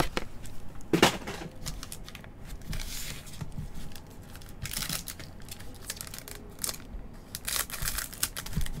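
Wrappers of 2023 Bowman Mega Box baseball card packs crinkling as the packs are handled, in short bursts, with a thump about a second in. Near the end, scissors snip a pack open.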